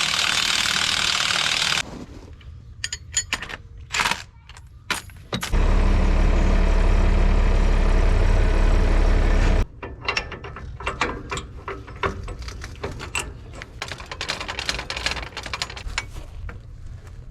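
Hand tools working a bolt on a grain drill's hitch: a long run of rapid ratchet-like clicks and small metal knocks, broken earlier by two stretches of loud, steady rushing noise.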